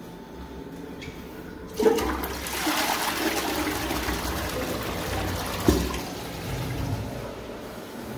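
Toilet flushing: about two seconds in, water rushes down the bowl for about four seconds and then fades, draining freely now that the clog has been cleared. A sharp knock comes near the end of the rush.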